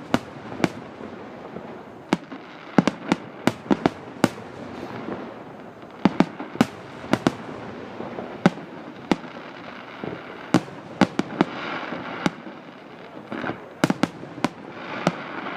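Aerial fireworks bursting: dozens of sharp bangs at irregular intervals, some in quick clusters, over a continuous background noise.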